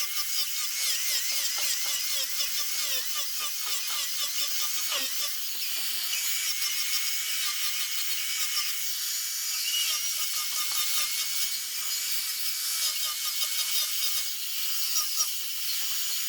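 A high-speed power sanding tool grinding a zelkova root. Its high whine wavers in pitch under load for the first few seconds, then holds steady over a continuous scraping of abrasive on wood.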